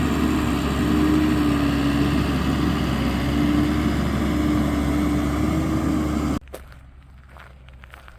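Vehicle engine running steadily: a loud drone with a steady hum that cuts off abruptly about six seconds in, leaving only faint small clicks and knocks.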